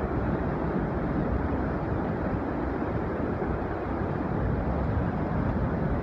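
The Yellowstone River pouring over the brink of a large waterfall, heard close up: a steady, deep rush of heavy falling water with no breaks.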